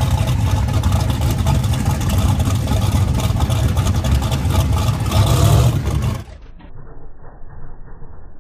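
Drag-racing pickup truck's engine running very loud and close, a dense rapid stream of exhaust pulses that swells just before six seconds in. It then drops suddenly to a faint, muffled low rumble.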